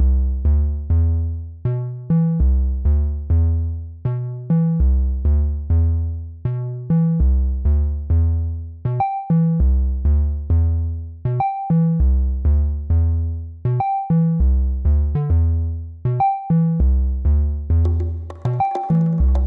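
Background music: a synthesizer plays a repeating pattern of short notes that fade quickly, over a deep bass line. A high bell-like note joins about halfway through, and percussion comes in near the end.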